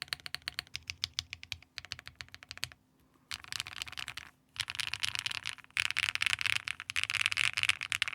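Typing on a Mode65 mechanical keyboard with HMX Hyacinth V2U switches, PBT keycaps, plate foam and an isolated top mount. A run of quick separate keystrokes, a short pause about three seconds in, then three stretches of very fast, dense typing.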